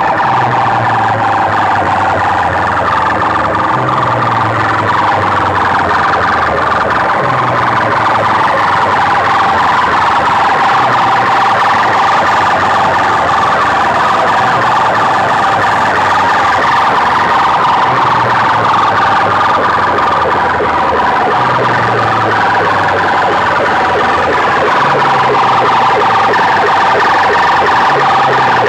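Banks of aluminium horn loudspeakers blaring a loud, steady siren-like tone, with a low pulse returning about every three to four seconds.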